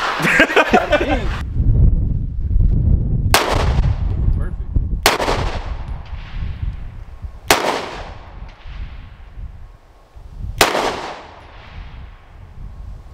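Canik Mete MC9 9mm pistol fired four times in slow single shots, a couple of seconds or more apart, each crack trailing off in echo.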